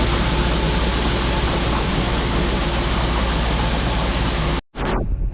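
International Harvester combine harvesting corn: a loud, steady rush of machinery noise over a low hum, with shelled grain moving through it. It cuts off abruptly near the end.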